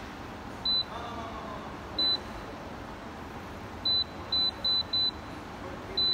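Nutricook NC-SP204 air fryer's touch control panel beeping as its buttons are pressed to set the time and temperature. There are about seven short, high beeps, one per press: two spaced out at first, then a quick run of four about two-thirds of the way in, and one more at the end.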